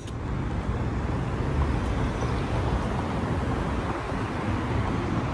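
Steady rushing outdoor noise with a strong low rumble, typical of city traffic; it cuts in abruptly at the start.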